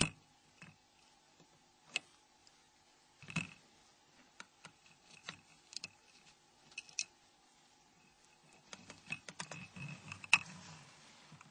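Metal tweezers clicking and tapping on the Nokia N93's small plastic and circuit-board parts while levering out a connector. The clicks are scattered and irregular, with a denser run of light ticks near the end and one sharper click among them.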